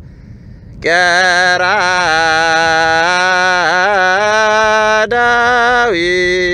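A man chanting an Ethiopian Orthodox zema, holding long notes with wavering melismatic turns. The chant comes in about a second in after a short pause and breaks briefly near the end.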